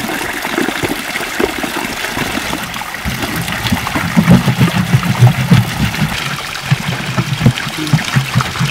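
A small spring trickling from a rock spout. From about four seconds in, irregular splashing as the water runs into a plastic jerrycan held under the stream.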